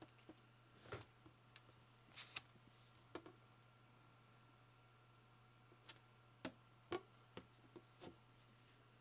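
Scattered small clicks and taps of keyboard parts being handled and fitted during a custom keyboard build, irregular and about a dozen in all, over a faint steady hum.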